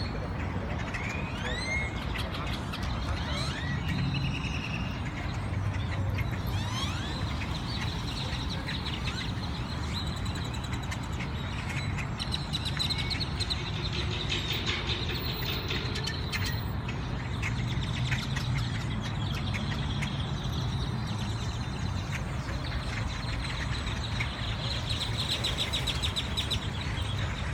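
A flock of birds calling and chirping, with rising whistled glides near the start and dense chatter through the rest, over a steady low rumble of traffic.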